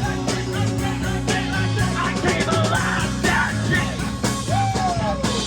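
Live rock band playing at full volume: drums, bass and electric guitar with a singer's voice, and a note sliding down in pitch near the end.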